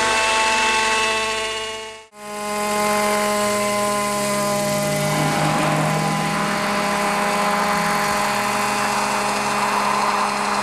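Radio-controlled gasoline model helicopter (modified Vario gasoline trainer, 1.8 m rotor) running in flight, a steady engine note with rotor sound. The sound dips out briefly about two seconds in and comes back at a slightly different pitch.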